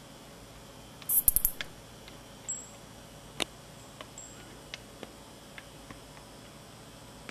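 Kuwayamaea sapporensis (Ezo-tsuyumushi) bush-cricket calling: a short, loud burst of rapid, high clicks about a second in, then scattered single ticks.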